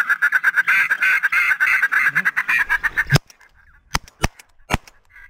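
Rapid, continuous duck quacking, cut off about three seconds in by a shotgun shot. Three more shotgun shots follow in quick succession over the next two seconds.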